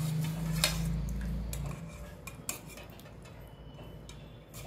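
A metal ladle scraping and clinking against a metal cooking pot and steel plates as curry is served, with a few sharp clinks. A low steady hum runs under the first couple of seconds, then fades.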